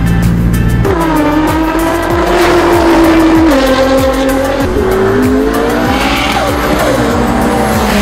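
Car engine accelerating hard on a drag run, its pitch climbing and then dropping at each upshift, two or three gear changes.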